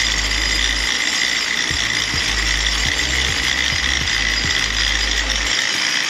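Rattan basket seats on an overhead cable ride rattling and clicking as their hangers and pulleys run along the wire, with irregular low knocks about once or twice a second. Under it runs a steady high hiss.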